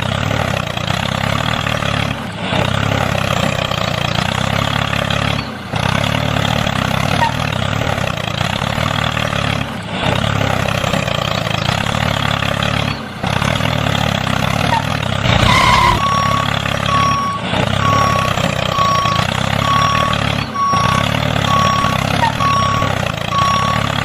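Handmade mini 4x4 tractor's motor and drivetrain running steadily under load, breaking off briefly every few seconds. About two-thirds of the way in, a reversing beeper starts, beeping about twice a second.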